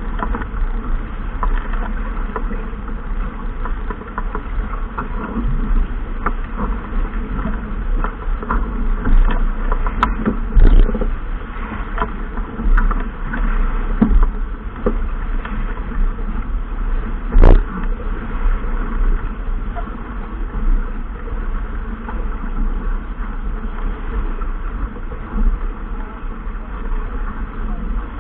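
Steady wind and water noise aboard a boat under way, buffeting the microphone, with a few sharp knocks, the loudest about seventeen seconds in.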